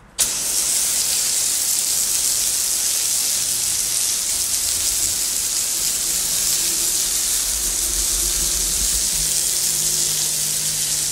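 A garden hose with a pistol-grip spray nozzle jetting water onto a concrete garage floor: a loud, steady hiss of spray striking the wet concrete, starting suddenly.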